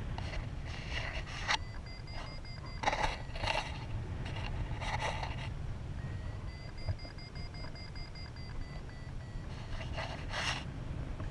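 Wind rushing over the microphone of a paraglider in flight, a steady low rumble with a few short hissing gusts. A thin, steady high electronic tone from the flight variometer comes and goes in long stretches.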